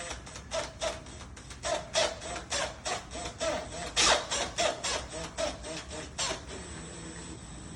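A hand tool worked back and forth on a wooden door, like a saw or rasp cutting, in quick strokes about three a second that stop near the end.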